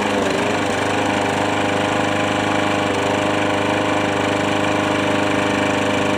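Lawn mower engine running steadily at an even speed.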